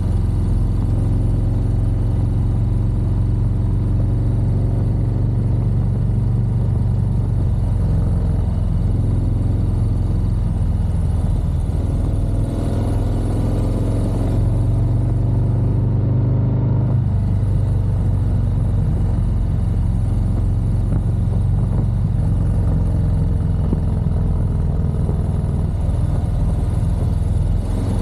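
Motorcycle under way on a twisty road: steady low wind noise on the helmet or bike microphone with the engine running underneath. From about twelve to seventeen seconds in, the engine pitch rises and falls as the rider changes speed.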